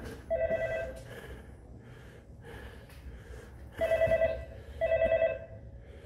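Wall-mounted door intercom ringing through to the staff: two short warbling rings, a pause of about three seconds, then two more rings.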